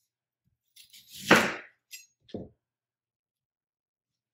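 Chef's knife cutting through a peeled onion and striking a plastic cutting board: one sharp cut about a second in, followed by a small click and a short soft knock.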